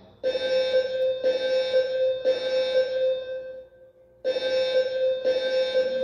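Building fire alarm sounding in the temporal-three evacuation pattern: three low tones about a second apart, a short pause, then the pattern starting again, during a fire alarm test.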